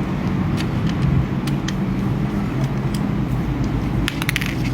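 A steady low hum runs throughout, with scattered sharp plastic clicks as the opened hair straightener is handled and its buttons pressed to switch it on. A quick run of clicks comes near the end.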